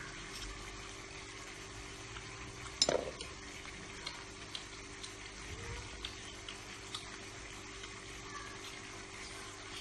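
Quiet eating sounds: soft clicks from chewing and handling shellfish meat over a steady hiss and hum, with one louder knock about three seconds in.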